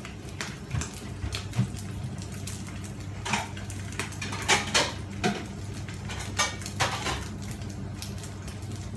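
Crockery plates being taken out and handled: a string of separate knocks and clinks, some ringing briefly, over a steady low hum.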